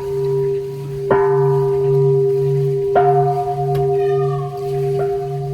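A large bell struck again and again, twice firmly and once lightly near the end, ringing on long after each stroke. Its deep hum swells and fades about twice a second.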